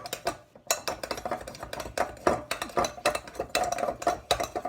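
Utensils stirring a glue mixture in bowls, with rapid, irregular clinks and scrapes against the bowl sides as the slime is mixed.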